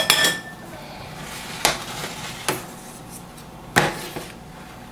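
A metal ladle stirring miso paste into hot water in a stainless steel saucepan, knocking against the pot a few times with irregular light clinks.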